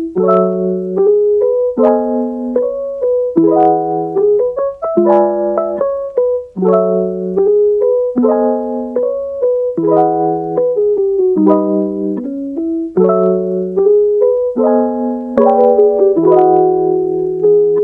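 Background music: piano chords played in a steady rhythm, changing about every second and a half.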